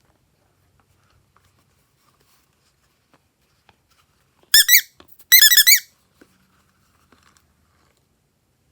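Two quick runs of high-pitched squeaks about halfway through, each squeak rising and then falling in pitch, with a few more in the second run than the first. Otherwise only faint ticks.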